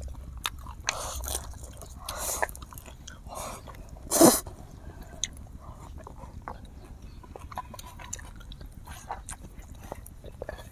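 Close-miked eating sounds: chewing, lip smacks and slurping of spicy instant noodles. One loud, brief sound falling in pitch comes about four seconds in.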